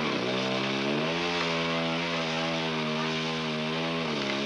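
Two-stroke chainsaw running as it cuts into a teak trunk. Its engine pitch starts low, climbs about a second in and holds steady, then sags briefly near the end as the saw bites under load.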